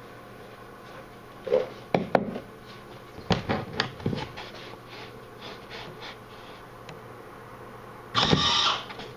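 A run of knocks and clatters as tools and metal are handled on a workbench. Near the end comes a harsh, noisy burst lasting under a second.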